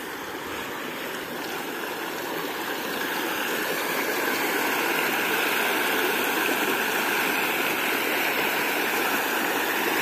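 Shallow creek water rushing over a rock slab in a small waterfall: a steady splashing rush that grows a little louder over the first few seconds, then holds.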